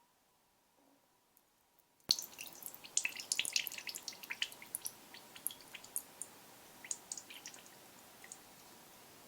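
Liquid dripping and splashing. It starts suddenly about two seconds in with a sharp click, comes as many irregular drips at first, then thins out to scattered drips.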